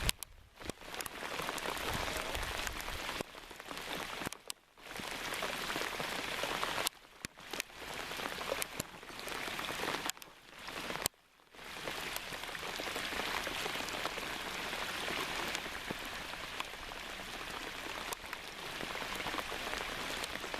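Heavy rain falling, a steady hiss that drops out briefly several times.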